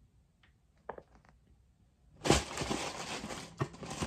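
Tissue paper crinkling and rustling as a sneaker is wrapped back into its box, starting about two seconds in after a few faint taps.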